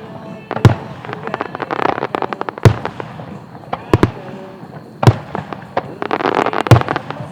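Aerial firework shells bursting in a string of sharp booms, about five, spaced a second or two apart. Dense crackling from star effects follows some of the bursts.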